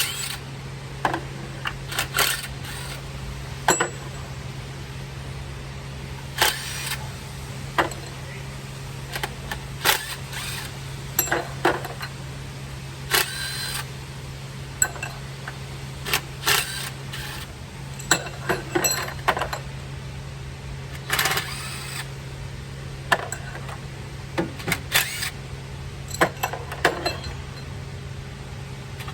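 Irregular sharp metallic clicks and clinks, like hand tools handled against metal engine parts, over a steady low hum.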